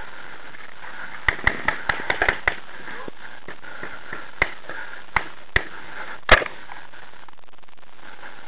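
Paintball markers firing: a quick string of about seven sharp pops about a second in, then four more single shots spaced out over the next few seconds, the last the loudest.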